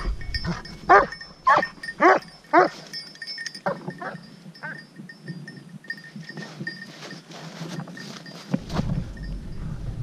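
Hunting dog barking at a shot wild boar, baying it as it did while holding the boar before the shot. A run of loud barks about two a second, then softer, sparser barks.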